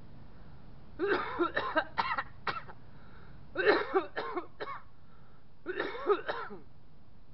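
A man coughing in three short fits, each a quick run of several coughs, about two seconds apart.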